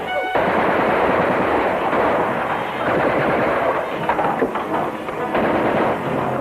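Continuous gunfire: rapid machine-gun bursts mixed with single shots, with no break.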